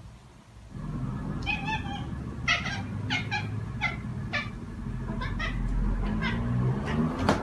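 Calico cat giving a quick series of about ten short, high meows, starting about a second and a half in.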